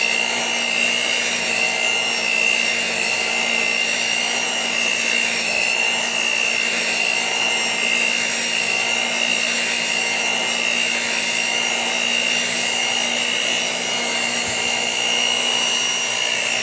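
Electric kitchen mixer running steadily on speed 3, beating batter.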